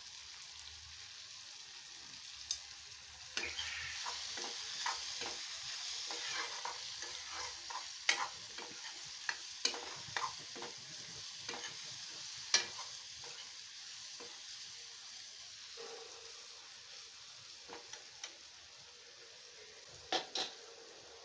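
Potato and tomato frying in oil in a metal kadhai, sizzling steadily, while a metal spoon scrapes and clicks against the pan as it is stirred, the clicks coming thick from a few seconds in to past halfway. It quietens afterwards, with a couple of clicks near the end.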